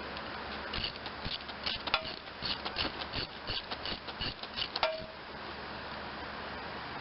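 A run of irregular light metallic clicks and ticks from hand tools and metal parts on a lawn tractor's starter being loosened, with two sharper metal clinks that ring briefly, about two seconds in and near five seconds.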